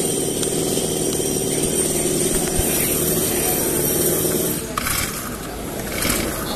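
Honda GX35 single-cylinder four-stroke engine on a brush cutter running at idle, a steady hum with a high whine over it, quiet and smooth. About four and a half seconds in the engine sound drops lower, and two short hissy noises follow.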